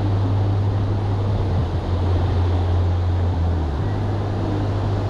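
Steady low rumble of wind buffeting the microphone, with the wash of beach surf behind it.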